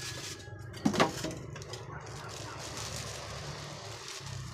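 Styrofoam packing blocks being handled and pulled apart, with two sharp creaks about a second in, then the printer's clear plastic wrapping rustling under the hands.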